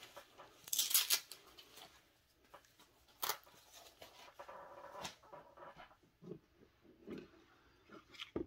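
Tools and small parts being handled and rummaged through on a workbench: a short rattle about a second in, then a few sharp clicks and light knocks.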